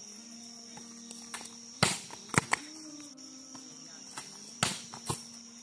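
A volleyball being struck by hands during a rally: about five sharp slaps, two of them in quick succession. Under them runs a steady high-pitched drone of crickets.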